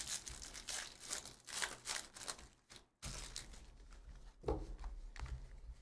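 Foil trading-card pack wrapper crinkling and tearing as it is ripped open by hand, busiest in the first three seconds and quieter after.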